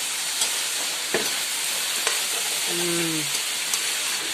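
Potato, pea and soybean-chunk curry frying in oil in a pan with a steady sizzle, and a spatula knocking against the pan a few times as it is stirred.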